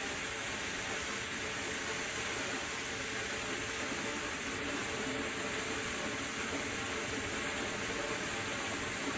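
Steady rushing noise of fast-flowing floodwater, even and unbroken throughout.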